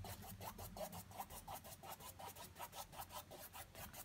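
A paintbrush loaded with acrylic paint scratching across a stretched canvas in quick, short, scrubbing strokes, about six a second; faint.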